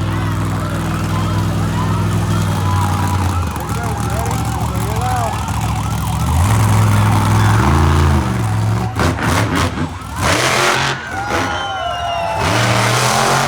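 Rescue Racer monster truck's engine idling with a steady low rumble, then revving up and down. From about nine seconds in it runs loud at full throttle with crackling bursts.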